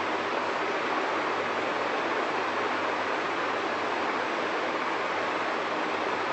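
Steady, even rushing noise that holds the same level throughout, with no tones, clicks or changes.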